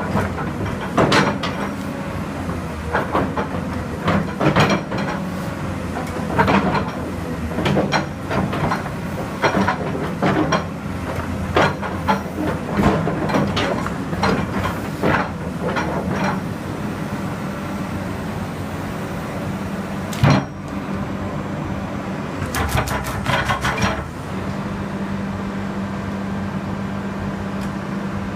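Komatsu PC220-7 crawler excavator's diesel engine running steadily, with repeated sharp metallic knocks and clanks for the first half, one heavy knock about twenty seconds in, and a quick rattle of clicks shortly after.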